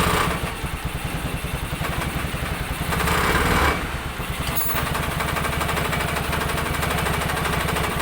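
Newly fitted Jialing 200cc engine in a three-wheeled motorbike running on its first test run, revved briefly about three seconds in and then settling back.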